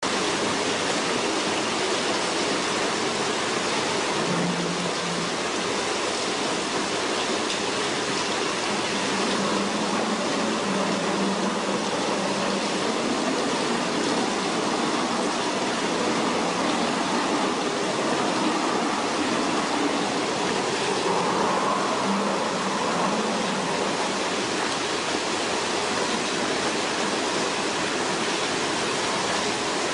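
Steady rush of running water in a fish-rearing tank, an even hiss with no breaks.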